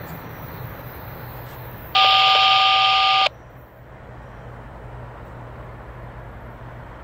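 Railroad radio traffic: a loud two-note dual-tone beep, like a telephone dialing tone, lasting just over a second about two seconds in, heard through a radio over a faint low hum.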